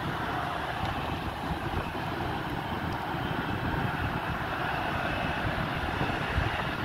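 Steady jet-engine noise from a taxiing American Airlines airliner, with wind buffeting the microphone.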